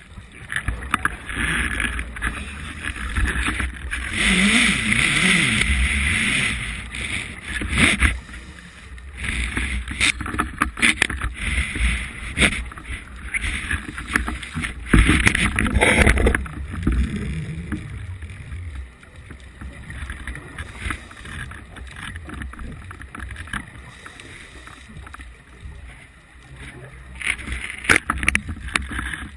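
Underwater noise picked up by a camera in a waterproof housing: water rushing and bubbling, with irregular knocks and bumps and a low rumble; the bubbling is loudest about four to seven seconds in and again around fifteen to seventeen seconds.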